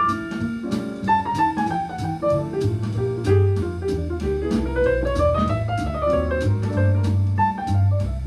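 Jazz piano trio recording played back through a pair of DALI Model 7A floor-standing loudspeakers and heard in the room: piano runs over plucked double bass, with steady ride-cymbal strokes. The piano line climbs and then falls back in the middle.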